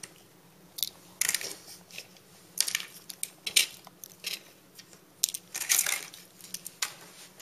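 Handling noises of small electronic parts: about eight irregular rustles and clicks as a hobby electronic speed controller and its wires and bullet connectors are picked up and gathered from the bench.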